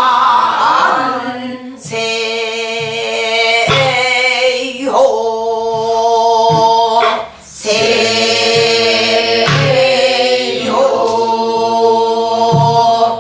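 A woman singing a Korean Namdo folk song in long, held, wavering notes. She beats the rhythm on a buk barrel drum with a stick, and the strokes come as short low thuds between the phrases.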